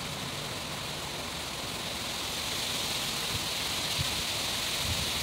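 Steady hiss of background noise, like rushing air, a little louder in the second half, with a couple of faint low thumps near the end.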